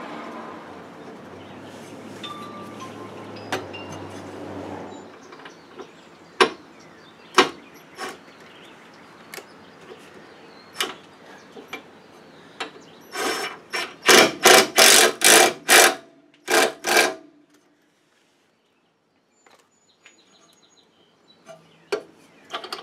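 Ryobi cordless impact driver tightening a bolt on an aluminum A-arm guard in about eight short bursts, with scattered clicks of metal hardware being handled before it.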